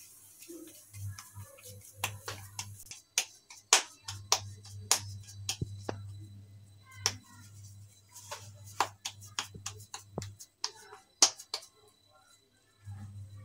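Hands patting a soft sabudana-and-potato dough patty flat between the palms: a run of quick, irregular sharp slaps, with a short lull about halfway and stopping near the end.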